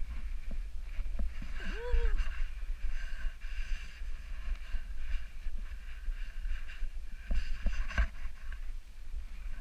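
Snowboard riding through deep powder: a pulsing hiss of the board cutting the snow over wind buffeting the camera's microphone. There are a few knocks, and a short rising-and-falling squeak about two seconds in.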